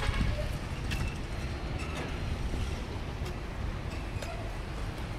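Steady low outdoor rumble with no clear pitch, with a few faint ticks about a second apart.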